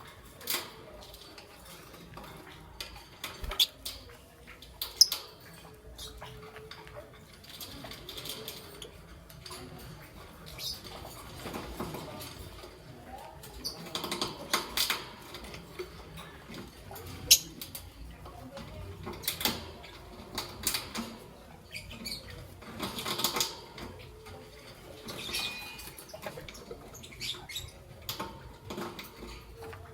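Young peach-faced lovebird moving about: scattered scratchy scuffling and sharp clicks, with one short high note near the end.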